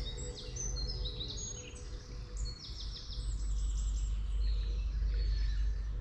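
Several songbirds singing at once, overlapping chirps and quick trills, over a steady low rumble.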